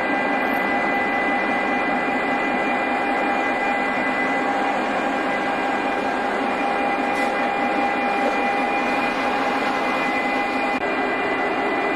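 Aircraft turbine running steadily: a loud, even rush with a constant high whine made of several tones. One of the lower tones drops out near the end.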